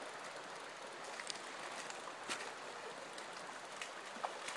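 Steady rush of a shallow river's flowing water, with a few short splashes of feet wading through the shallows, mostly near the end.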